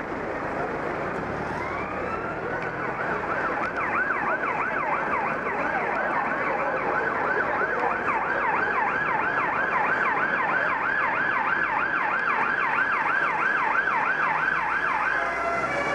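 Police car siren: it rises in, then sounds a fast yelp of about three warbles a second, changing pattern just before the end, over steady street traffic noise.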